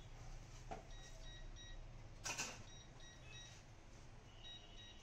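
Faint steady low hum with a brief scrape a little over two seconds in: a metal pizza peel sliding across the deck of a pizza oven as a pizza is lifted out.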